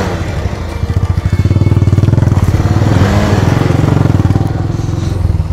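Motorcycle engine running under load while riding off-road, growing louder about a second in and shifting in pitch midway.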